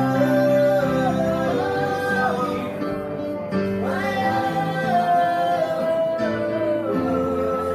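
A man singing with his own digital piano accompaniment (a Casio Privia), held notes gliding from pitch to pitch over steady chords, with a woman's voice also singing.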